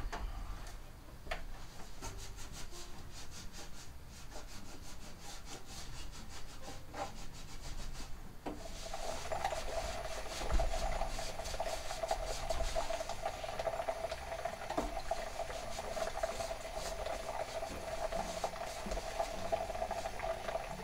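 Damp paper towel rubbing and scraping against the inside of a Cooks Essentials air fryer's basket chamber in repeated wiping strokes. From about eight seconds in, a steady tone sounds beneath the rubbing.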